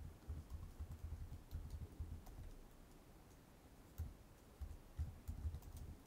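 Faint keystrokes on a computer keyboard: a quick run of typing, a pause of about a second and a half, then a second short run.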